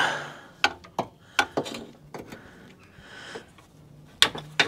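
Ratchet wrench clicking and small metal tool clinks while the hex bolts holding the water pump are undone: a scattered string of sharp clicks, roughly one every half second.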